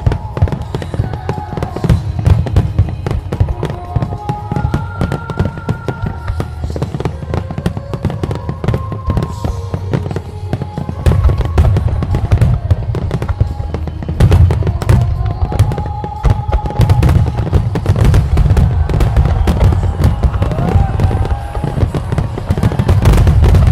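Fireworks display: a rapid, continuous string of aerial shell bursts and bangs over a heavy low rumble, growing louder and denser about halfway through.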